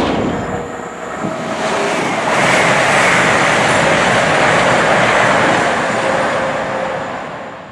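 A train passing through the station at speed without stopping, a loud rush of wheel, rail and air noise that builds, holds, then fades away near the end.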